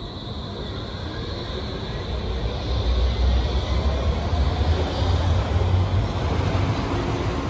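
Berlin U-Bahn train pulling out of the station, accelerating: a low rumble of wheels and running gear that grows louder from about two and a half seconds in, over a faint rising whine of the traction motors.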